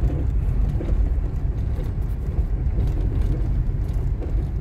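Steady low rumble of a vehicle driving along a road: engine and road noise.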